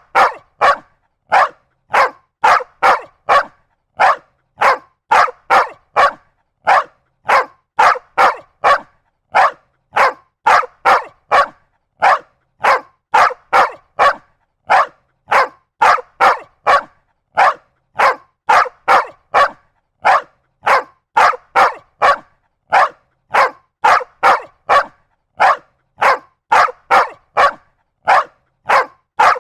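A dog barking over and over in short, sharp barks, about one to two a second and sometimes in quick pairs, with silence between each bark.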